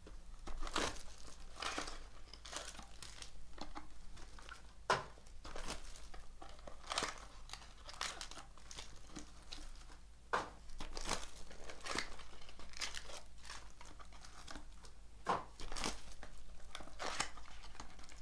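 Plastic or foil wrapping on a box of trading cards being torn open and crinkled by hand: irregular crackling and rustling, with a few sharper snaps.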